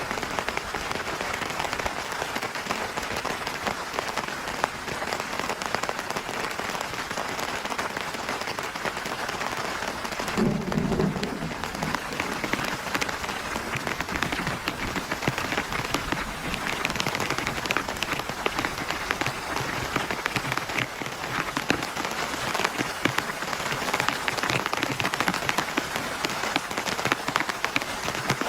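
Heavy rain falling steadily, dense with individual drop hits. About ten seconds in there is a brief low sound lasting a second or so.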